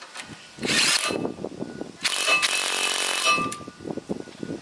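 Handheld power tool run in two bursts while the brakes are refitted, a short one under a second in and a longer one of about a second and a half, with a motor whine.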